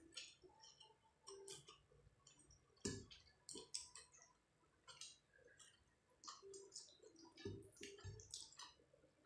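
Faint wet clicks and smacks of someone chewing a mouthful of rice and fish curry and working the rice into the curry by hand on a plate. There is a soft thump about three seconds in and two more near eight seconds.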